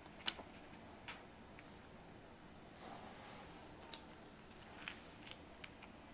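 Small sharp clicks and taps of laptop RAM sticks being handled and seated in their slots: about six scattered clicks, the loudest about four seconds in, with a soft brief rustle just before it.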